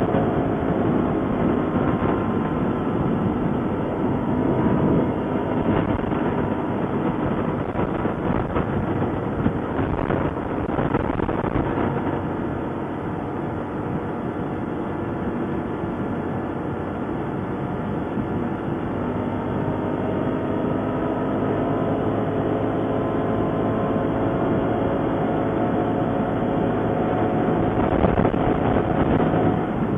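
ATV engine running under way, its pitch drifting slowly up and down over a steady rumble of the ride.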